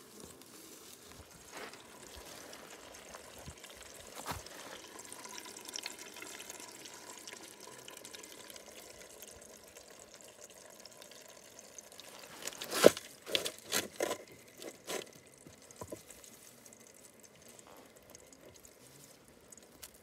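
Water trickling from a float valve into a shallow plastic bottle trough as it fills automatically. A quick run of sharp knocks and clatters comes about two-thirds of the way through.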